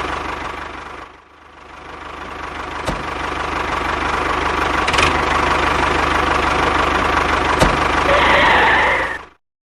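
Engine running steadily. It dips sharply about a second in and builds back up over the next few seconds, with a few sharp clicks, then cuts off abruptly near the end.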